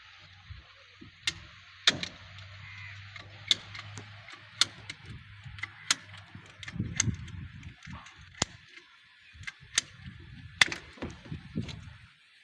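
Irregular sharp clicks and knocks, about a dozen, over a steady hiss, with a low hum in the first half and low rumbling around the middle and near the end.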